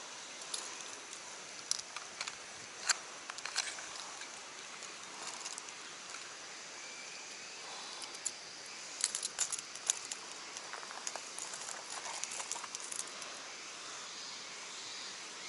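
Scattered small clicks and light jingles of fishing tackle being handled while a lure is changed, bunched near the start and again in the middle. A steady hiss runs underneath.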